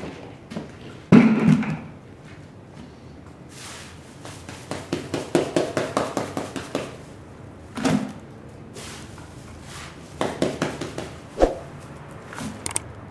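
Work on a dirty rug: a heavy thud about a second in, a run of quick taps in the middle, and a few more thuds and knocks later on.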